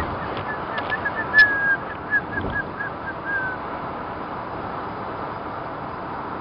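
Steady road noise of a moving car heard from inside the cabin. Over it, a run of short, high squeaky chirps, about three or four a second, fades out after about three and a half seconds. There is a sharp click about a second and a half in.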